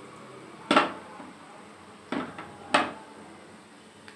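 A metal saucepan of gulab jamun in sugar syrup being shaken, clanking three times as it knocks about.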